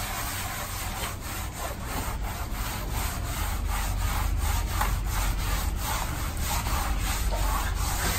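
Wet foam sponge float scrubbing back and forth over a brick wall coated in white stucco, a rasping rub of about two or three strokes a second, working the stucco into the grout joints for a German schmear finish. A low rumble runs underneath.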